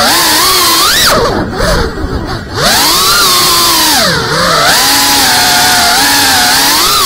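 Brushless motors and propellers of a GEPRC Cinelog 35 FPV drone, heard on board, whining and gliding up and down in pitch with the throttle. About a second in the pitch drops and the sound thins out for about a second and a half as the throttle is cut, then it punches back up; a second, shorter dip comes just past halfway.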